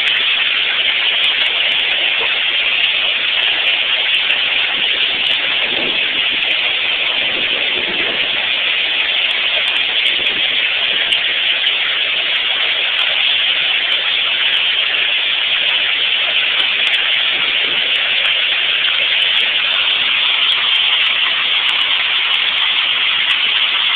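Heavy hail falling thickly, a loud, steady, unbroken clatter of hailstones with no let-up.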